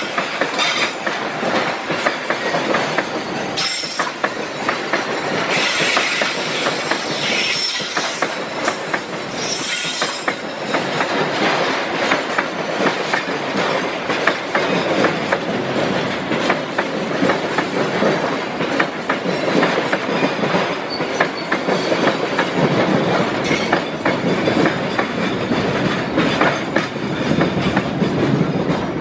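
Container freight wagons rolling past on steel wheels, a steady rolling rumble with a rapid clickety-clack from the wheels over rail joints. A few brief high-pitched wheel squeals come in the first ten seconds.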